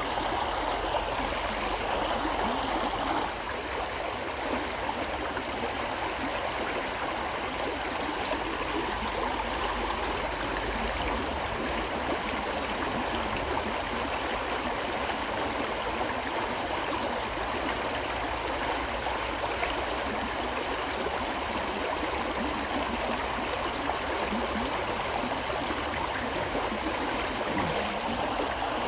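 River water flowing steadily in a continuous babbling rush, a little softer after about three seconds.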